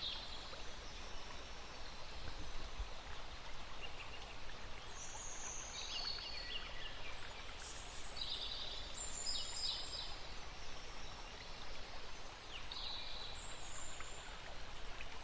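Steady background hiss with small birds chirping now and then, the chirps mostly coming in the middle and latter part.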